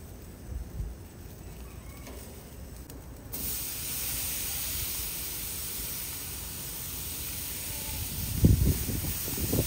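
Sausages and steak sizzling on a hot gas grill: a steady hiss that starts suddenly about three seconds in. A few low bumps sound near the end.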